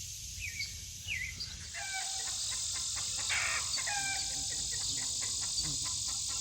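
Birds chirping, with short downward chirps and a couple of longer held calls, over a steady high drone of insects.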